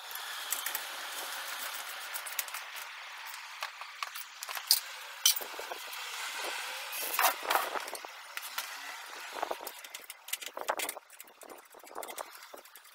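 Hand tools working on a motorcycle's rear axle nut while it is tightened down. There is a steady rasp through the first half, then scattered sharp metallic clicks and clinks.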